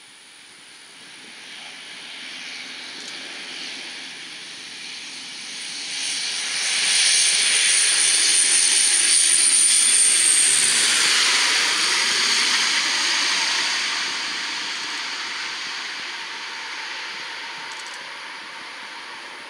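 Lockheed P-3B Orion airborne-early-warning aircraft's four Allison T56 turboprops passing low overhead on landing approach. The engine whine builds to a peak about halfway through, drops in pitch as the aircraft goes over, then slowly fades.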